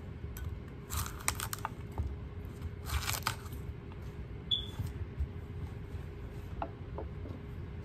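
Knife cutting and tearing cauliflower florets off the head on a wooden cutting board: crisp crunching and snapping, densest in two short spells about one and three seconds in, with scattered small clicks after.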